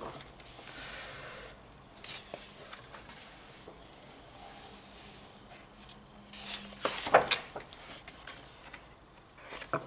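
Paper-and-cover rustling and rubbing as a colouring book is handled, with a few soft clicks and a sharper knock about seven seconds in.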